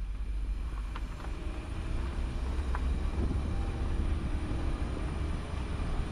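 Vehicle driving: a steady low rumble of engine and road noise, with a few faint clicks and knocks.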